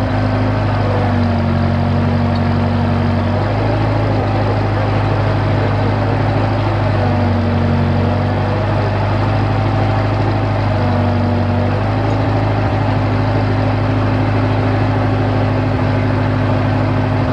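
Engine of a limited access drill rig running steadily at close range, its note dipping lower for a second or two three times.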